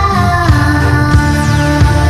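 Background music with a steady beat, about three beats every two seconds, under held melodic notes.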